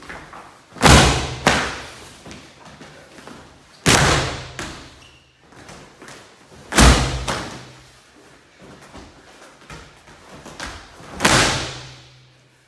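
A heavy wrestling throwing dummy and body hitting padded wrestling mats in four loud thuds a few seconds apart, each dying away with a brief room echo, with softer knocks and shuffling between.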